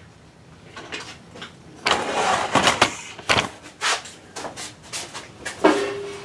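Brake booster on a vacuum test rig being worked: a series of sharp clicks and knocks, with a short rush of air about two seconds in.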